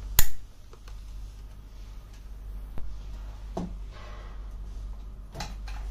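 A single sharp click of an RJ45 network-cable plug snapping into the socket on the back of an indoor video-intercom monitor, followed by a few faint clicks from handling the cable over a low steady hum.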